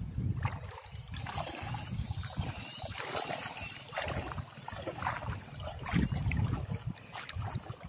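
Shallow river water sloshing and splashing around a person's legs as he wades, with irregular splashes.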